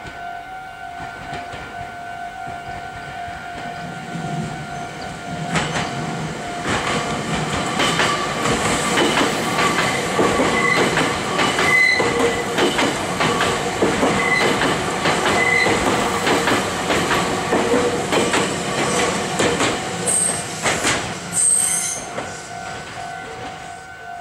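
Meitetsu 3300-series and 3150-series electric trainset passing close by. Its wheels give a rapid clickety-clack over the rail joints with bouts of high flange squeal; this builds about five seconds in and dies away near the end. A level-crossing warning bell rings steadily under it at the start and again at the close.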